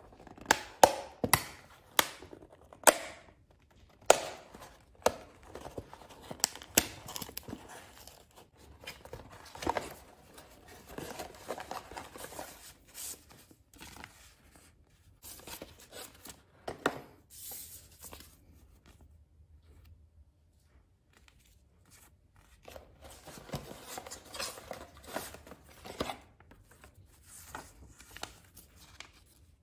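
A cardboard box being torn open by hand: a run of sharp tearing and snapping sounds in the first few seconds. Then comes crinkling and rustling as a thin plastic sticker sheet and paper memo pads are pulled out and handled, with a quiet pause a little past the middle.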